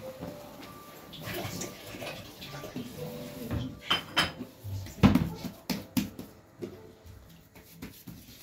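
Hands kneading and pressing çiğ köfte mixture in a round metal tray, with irregular knocks and scrapes against the tray. The loudest knocks come about five to six and a half seconds in.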